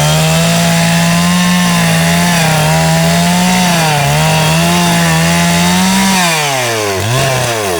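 Two-stroke chainsaw running at high revs as it cuts into a tree, the pitch wavering under the load of the cut. About six seconds in the revs fall away, pick up briefly, then drop again.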